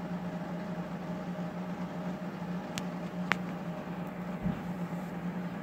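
A steady low hum with faint background hiss, broken by two faint clicks about three seconds in.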